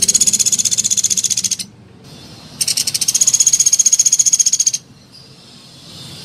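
Pelatuk beras (Sunda pygmy woodpecker) calling from its cage: two long, rapid, high trills, each about two seconds long, about a second apart.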